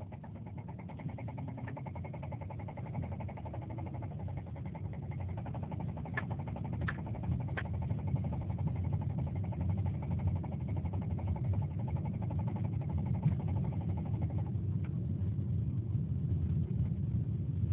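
2007 Subaru Forester XT's turbocharged 2.5-litre flat-four running under way, slowly getting louder, with a rapid, even knocking that dies away about fourteen seconds in. The owner suspects rod knock, though the noise comes and goes.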